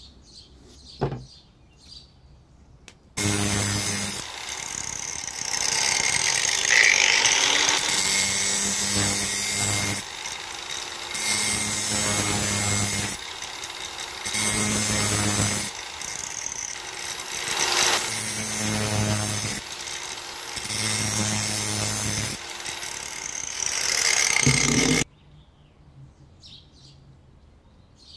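Angle grinder starting about three seconds in and running with its abrasive disc grinding the edge of a spring-steel knife blade. The grinding swells and eases every couple of seconds as the blade is pressed on and eased off, then stops suddenly near the end.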